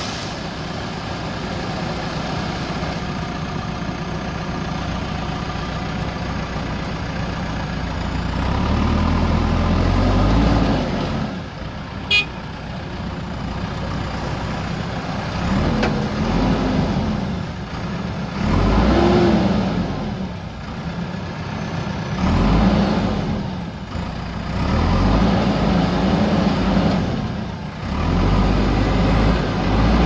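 Diesel engine of a JCB 3DX backhoe loader running, revving up and settling again several times under hydraulic load as the front bucket is worked, with water churning around the machine. A single sharp click about twelve seconds in.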